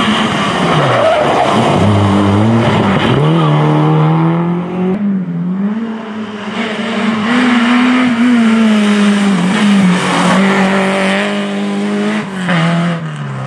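Small rally cars being driven hard on a tarmac stage, one after another. The engines rev high, then the revs drop and climb again through gear changes and braking, with a break in the sound about five seconds in.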